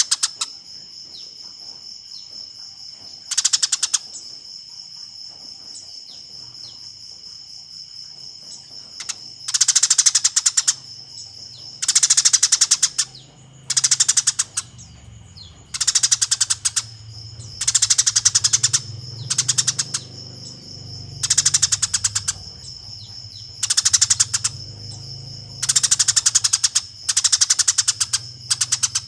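Eurasian tree sparrows giving fighting calls: about a dozen short bursts of rapid chattering, with gaps of a second or more between them, over a steady high-pitched tone.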